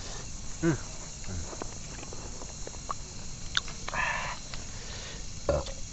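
Eating sounds: scattered light clicks and a short rustle, with a brief murmur or two, over a steady outdoor hiss.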